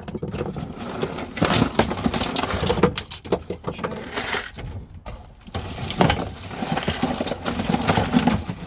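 Hand tools clattering and knocking against each other and the toolbox as it is rummaged through, in an irregular run of clicks and clinks with a brief lull around the middle.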